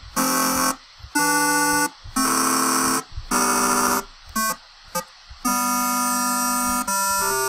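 Synthesized square-wave tones from software oscillators emulating analog ones in Max 8, played note by note from an on-screen keyboard. About six short notes with gaps between them, then a longer held note that changes pitch once near the end.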